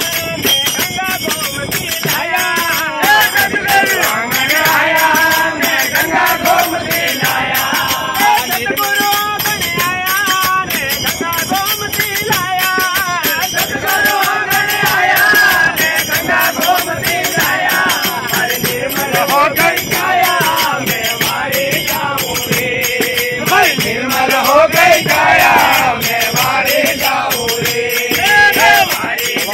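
A group of men singing a Rajasthani desi bhajan (folk devotional song) together, with hand-clapping and small brass hand cymbals (manjira) keeping a steady beat.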